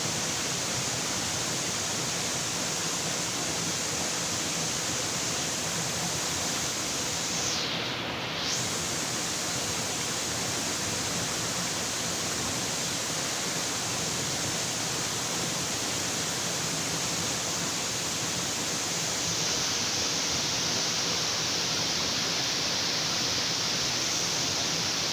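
Waterfall: a steady rush of falling water. The hiss is briefly muffled about a third of the way in and grows slightly brighter near the end.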